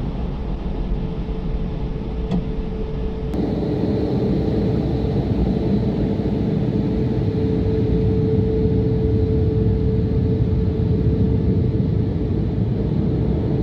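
Steady mechanical rumble of car wash machinery, with a constant mid-pitched hum. About three seconds in the sound shifts and a faint high whine joins it.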